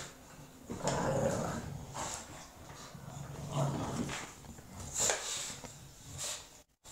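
Two English bulldogs play-fighting over a toy, growling and making rough mouthing noises in irregular bouts. The sound drops out briefly near the end.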